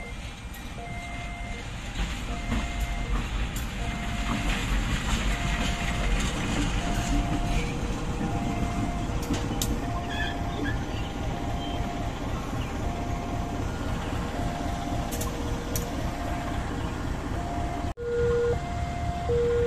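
A GE-built CC 203 diesel-electric locomotive passes close by at shunting speed, its engine rumble swelling as it draws near. Over it a level crossing's warning alarm beeps in a steady repeating pattern.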